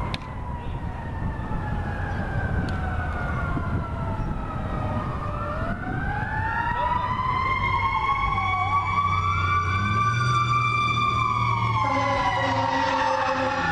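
Several emergency-vehicle sirens wailing at once, each pitch slowly rising and falling so that the tones cross one another.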